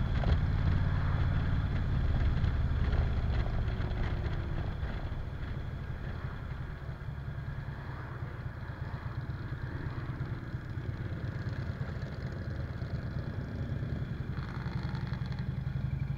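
Cruiser motorcycle engine running under way, heard from the rider's seat, louder over the first few seconds, easing off in the middle as the bike slows, and picking up again near the end.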